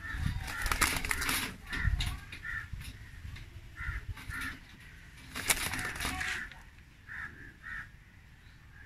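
Birds in a pigeon loft: short, high calls repeated every second or so, with bursts of rustling and flapping in the first second and a half and again about five and a half seconds in.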